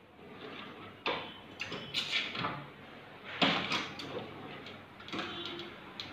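Manual cup sealing machine being worked: the metal cup holder is slid in under the sealing head, the handle is pulled down to heat-seal and trim the film over the cup, and the holder is slid back out. The result is a run of metallic clunks and sliding scrapes, the loudest about three and a half seconds in.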